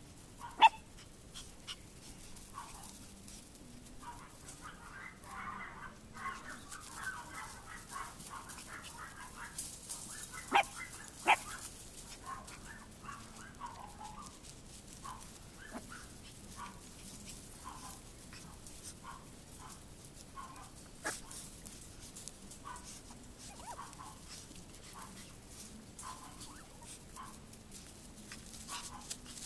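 Chihuahua puppies making many short, high yips while they play, with a dense run of yapping from about four to nine seconds in. Three sharp, louder sounds stand out, one about a second in and two close together around ten to eleven seconds.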